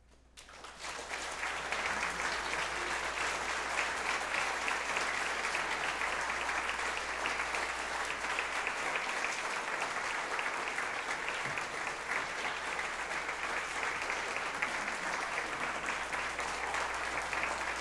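Audience applauding at the end of a piece. The applause swells in about half a second in, then holds steady.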